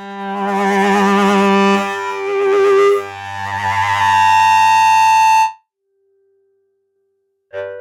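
Software synthesizer preset playing sustained, wavering brass- or woodwind-like notes over a low bass note. It cuts off abruptly about five and a half seconds in, and after a short silence a new patch starts with quick plucked notes near the end.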